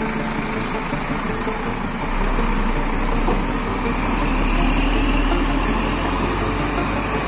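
Kramat Djati coach's diesel engine running as the bus pulls away slowly over rough ground, its note growing a little about two seconds in; the engine sounds smooth.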